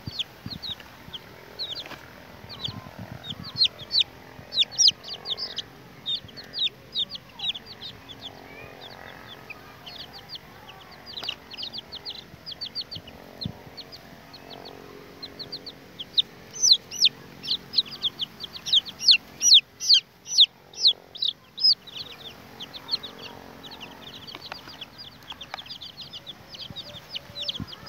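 Young chicks peeping: many short, high, falling cheeps in quick runs, the loudest and densest run about halfway through.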